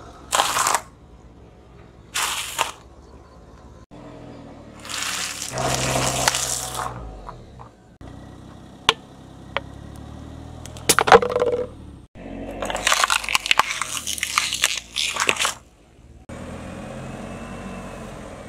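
A car tyre rolling slowly over a series of objects, crushing them one after another with short crunching and crackling bursts. Crunchy snack puffs crunch twice near the start. Later a plastic squeeze tube of hair-care product cracks and bursts under the tyre about eleven seconds in, followed by a longer stretch of dense crackling.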